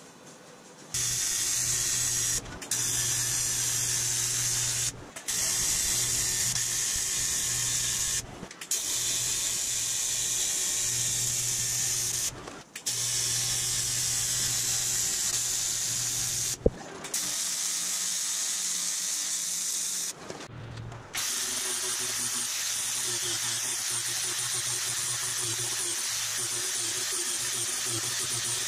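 AC TIG welding arc on aluminum sheet, buzzing steadily with a hiss as the cowl seam is welded, in several stretches broken by short gaps. About three-quarters of the way in, it gives way to the steady high whine of a small sanding-disc tool grinding down the aluminum weld bead.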